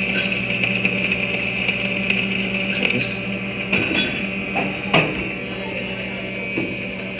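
Electric arc welding laying a bead: the steady buzz and crackle of the arc. It eases off about three seconds in, and a few sharp knocks follow.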